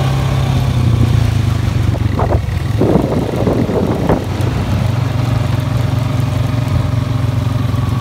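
ATV engine running steadily under way across rough ground, a constant low hum, with a short burst of rattling noise about three seconds in.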